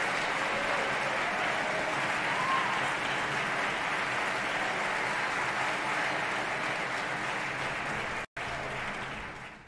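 Theatre audience applauding at a steady level. The sound drops out for an instant about eight seconds in and fades away at the very end.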